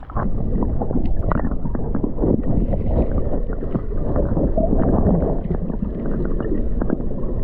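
Water sloshing and bubbling heard underwater as a swimmer moves about, muffled and dull with a heavy low rumble.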